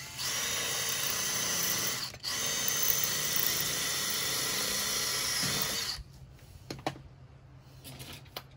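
Cordless drill running steadily as it bores into a pipe: about two seconds of whine, a brief stop, then about three and a half seconds more before it stops.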